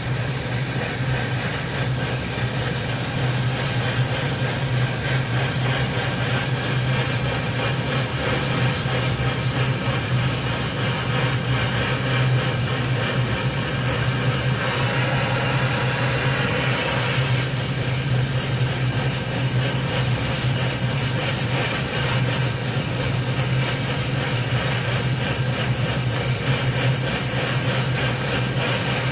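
Oxy-acetylene gas-welding torch flame hissing steadily as it melts filler rod into a steel pipe joint, with a steady low hum underneath.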